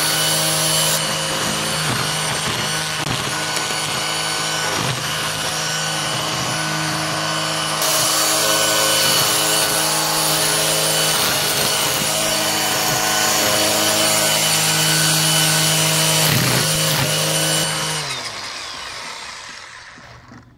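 String trimmer running at full speed, its line whipping and cutting through weeds, with many short strikes against the ground and stems. Near the end the motor is let off and spins down, its pitch falling until it stops.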